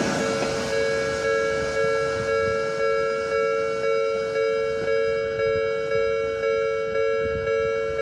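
Japanese level-crossing warning bell ringing in an even, repeated two-tone ding, about two strikes a second. Underneath it, the rumble of an Odakyu 4000 series electric train passing over the crossing fades away in the first second or so.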